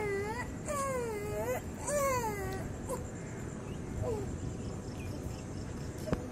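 Three drawn-out, wavering cries in quick succession, each dipping and then rising in pitch, followed by a few fainter, shorter calls. Underneath is a steady hiss and a thin, high, pulsing trill, and a sharp click sounds near the end.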